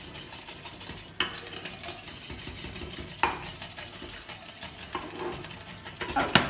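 Small wire whisk beating egg yolks with a vinegar reduction in a bowl over a water bath: a fast, steady clatter of the wires against the bowl, with a few sharper knocks.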